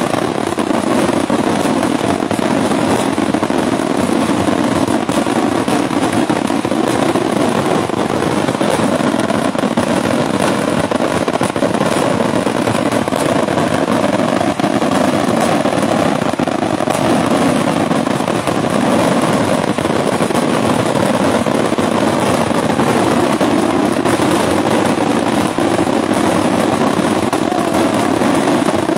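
Daytime fireworks barrage: shells and firecrackers going off so fast that the reports merge into one continuous, unbroken din.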